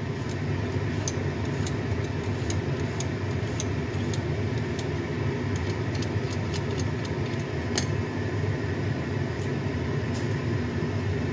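Vegetable peeler scraping strips off a raw carrot: quick, short scrapes, several a second and unevenly spaced, over a steady low machine hum.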